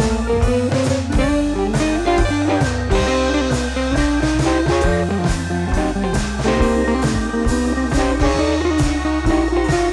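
Background music: blues-rock with a plucked guitar over bass and drums.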